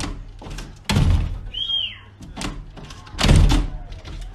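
A dog jumping up against a glass patio door, its paws banging the door in several heavy thuds, the loudest about a second in and just past three seconds. A short high squeal comes about halfway through.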